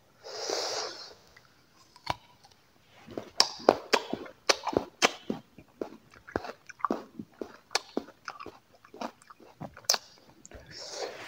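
A man chewing a crisp raw apple close to a clip-on microphone: many sharp, wet crunches in quick succession, starting about three seconds in. A short breathy rush of air comes at the start and again near the end.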